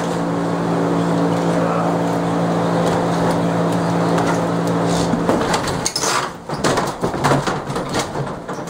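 A steady machine drone, then, about five seconds in, a wooden structure comes down in a run of crashing and clattering timber and debris during building demolition.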